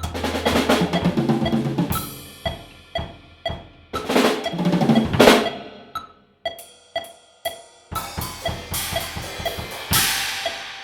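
Drum kit played solo. Dense fills with washes of cymbal crashes alternate with sparser single strokes, about two a second, on snare and bass drum.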